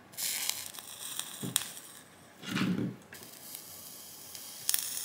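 Flux and solder sizzling and hissing as a soldering iron melts solder onto relay pins on a circuit board, in two stretches with a few sharp crackles. A short, duller sound comes a little after halfway.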